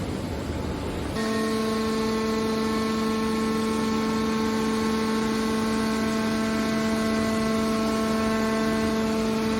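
Machine noise: a low rumble, then about a second in a steady pitched hum sets in suddenly and holds at one pitch.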